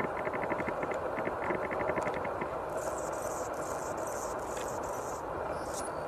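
Outdoor ambience: a steady low rush, with a rapid run of high ticks, about ten a second, for the first couple of seconds, then high hissy buzzes.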